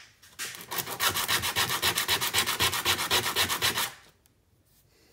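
A small carved wooden crankbait body being hand-sanded on a sheet of sandpaper laid flat on the bench, with rapid, even back-and-forth rubbing strokes that stop about four seconds in.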